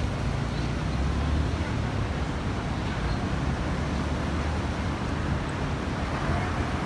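Steady city-street traffic noise: a continuous low rumble of passing cars and road noise.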